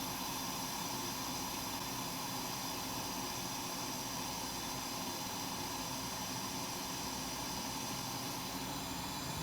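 Steady, even hiss of moving air, with no distinct events.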